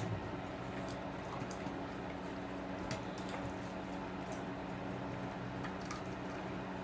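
Animals eating spilled popcorn off the floor: scattered crunches and soft chewing and licking sounds, over a steady low hum.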